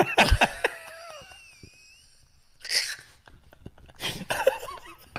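Two men laughing hard in fits. The laughter is loudest in the first second, trails off, then breaks out again briefly about midway and near the end.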